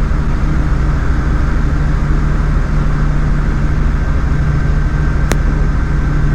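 Light aircraft's piston engine droning steadily. There is one brief click about five seconds in.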